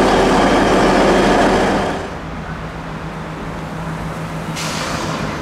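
A red DB regional train rumbles past close by, with a running hum. The sound drops away sharply about two seconds in, leaving a quieter low hum. Near the end a hiss sets in as a silver-and-red high-speed tilting train approaches on the rails.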